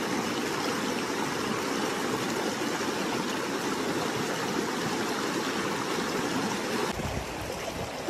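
Shallow mountain stream rushing over rocks, a steady rush of water. About seven seconds in, the sound shifts abruptly to a deeper rush.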